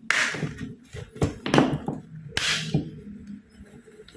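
Laptop keyboard keys being typed in quick irregular runs, a crisp clicking.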